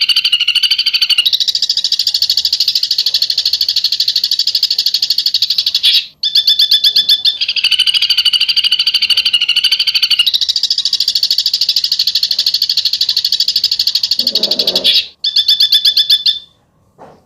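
A songbird's 'besetan': a sharp, rapid chattering trill in long unbroken runs of several seconds, changing pattern now and then, with short breaks about six seconds in and near the end.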